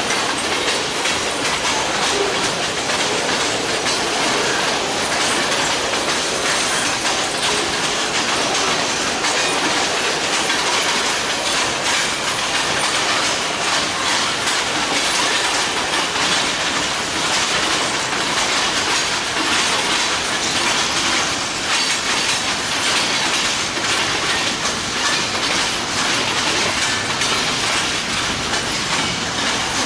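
A freight train's cars rolling past at speed: a steady, loud rush of wheel and rail noise with continuous clickety-clack.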